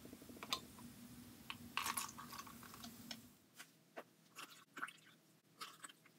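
Faint trickle and light crinkling of liquid poured from a plastic water bottle into small plastic cups, then scattered soft clicks of the plastic cups being handled.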